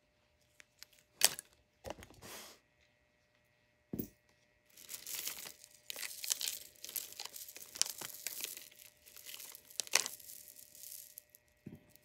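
Costume jewelry being handled: a few light clicks, then a long stretch of crinkling and rustling about five seconds in, as tangled pieces are worked loose.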